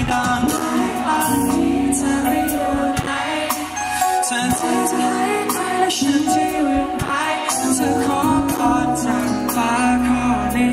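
Live pop-rock band playing with electric guitar, bass and drums, and a man singing the lead vocal.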